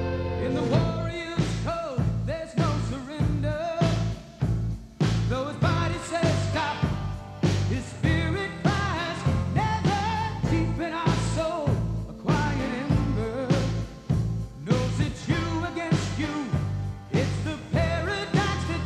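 Rock music with a singing voice over a steady beat and bass.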